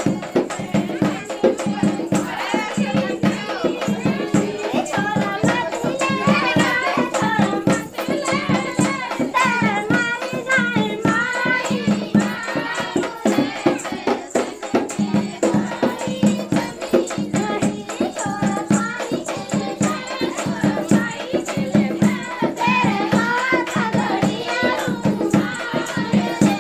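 Women singing a rustic Hindi folk dance song over a steady, fast drum beat, with rattling, jingling percussion running through it.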